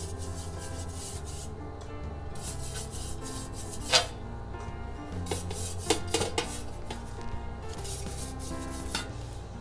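Silicone pastry brush rubbing oil onto a perforated metal baguette tray in repeated strokes, with a few light clicks against the metal, the clearest about four seconds in. Background music plays underneath.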